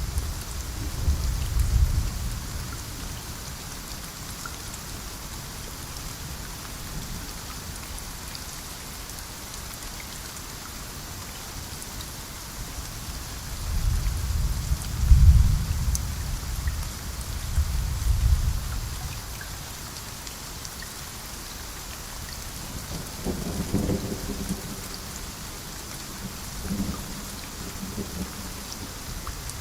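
Steady rainforest rain hissing, with deep thunder rumbling in low several times: at the start, in a longer roll around the middle, and more briefly near the end.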